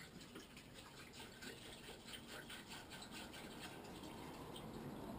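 Water poured from a gallon jug into a Dutch oven, glugging out of the jug's neck in quick, even pulses that ease off after about three and a half seconds. Faint.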